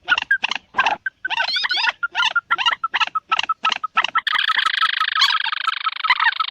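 Call of the bird known locally as 'peruk', played as a lure at night: a rapid series of short, sharp repeated notes, about three a second. About four seconds in it thickens into a dense, continuous chattering trill.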